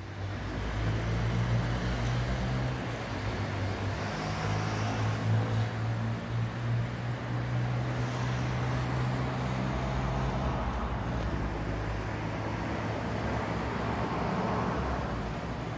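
A steady low engine hum that fades out about ten seconds in, over an even rushing noise.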